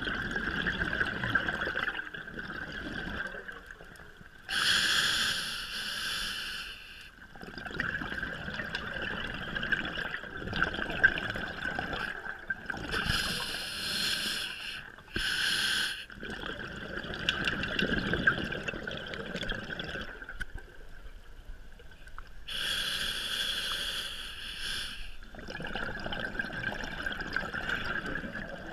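Scuba diver breathing underwater through a regulator, heard from the diver's own camera: four loud hissing bursts of about two seconds each, with steady bubbling and water noise between.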